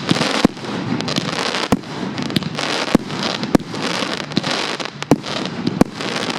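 Fireworks display: about ten sharp bangs, one every half second to second, over a continuous crackling hiss.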